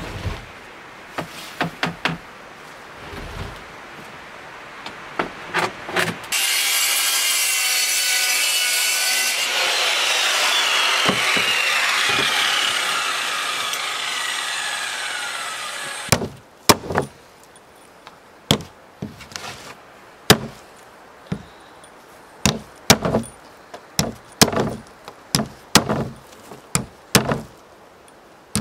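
Power saw cutting wood for about three seconds, its blade then winding down with a falling whine. Light knocks come before it, and a run of sharp knocks, one or two a second, comes after.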